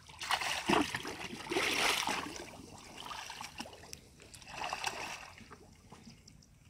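Water splashing and sloshing as someone wades through shallow muddy water, in several bursts: the loudest over the first two seconds, a shorter one in the middle and another about five seconds in.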